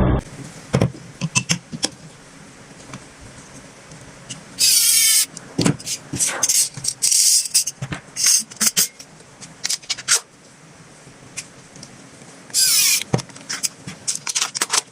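Plastic toy gun being handled and worked: scattered clicks and knocks, with two loud rasping bursts, each under a second, about eight seconds apart.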